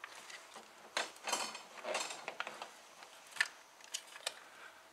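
Faint, scattered metallic scrapes and clicks of a fuel-line union nut being screwed by hand onto the fuel rail of a Porsche 944 engine, with a sharper click about three and a half seconds in.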